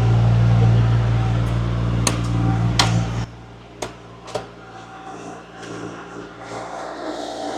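Engine of a compact earthmoving machine (mini excavator or skid loader) running steadily under load, then dropping sharply to a lower, quieter run about three seconds in. A few sharp knocks, like the bucket or metal parts clanking, land between two and four and a half seconds in.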